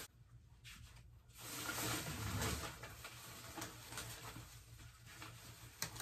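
Faint rustling of paper grocery bags with a few small knocks as groceries are handled, starting about a second and a half in after a near-silent moment.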